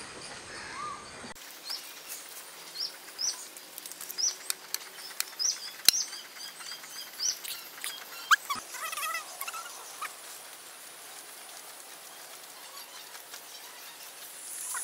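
A bird repeating short, rising chirps for several seconds, with scattered sharp clicks and taps among them. Around the middle comes a bird call of several wavering notes, followed by a faint, steady high tone.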